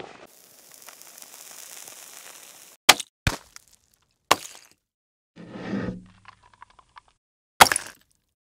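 Ice pick striking a block of clear ice: four sharp cracks, two close together about three seconds in, another a second later and a last one near the end, with a crunch of breaking ice in between. The cracks are preceded by a steady hiss.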